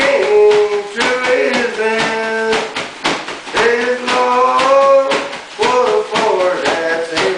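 A bagpipe-style tune 'played' on an inflated plastic garbage bag squeezed like a bagpipe bag: held nasal notes over a lower drone, the melody stepping between notes, with regular rhythmic taps.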